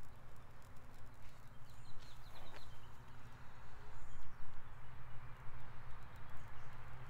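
Breath being blown again and again into a smoldering bundle of ashed cattail down tinder to coax the ember into flame: uneven rough puffs. A few quick bird chirps about two seconds in.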